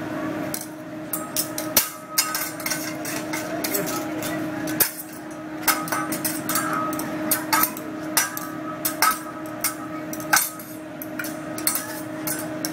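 Metal hibachi spatula and fork clacking against each other and tapping on the steel griddle in quick, irregular runs of sharp clicks, over a steady low hum.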